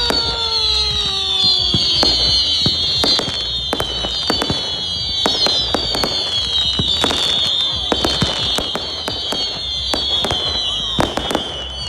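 Fireworks going off: many sharp pops and cracks at irregular intervals over a continuous chorus of high, overlapping whistles that slide down in pitch.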